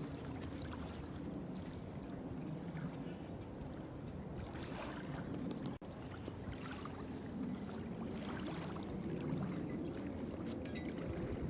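Steady rush of a fast-flowing flooded river mixed with wind on the microphone, with faint scattered ticks and a brief break about halfway through.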